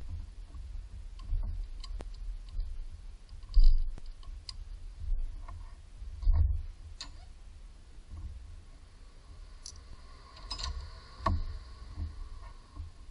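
Hands working on parts in a car's engine bay: scattered clicks and knocks of hard plastic and metal being handled, the loudest about three and a half seconds in, with a brief ringing note around ten seconds in.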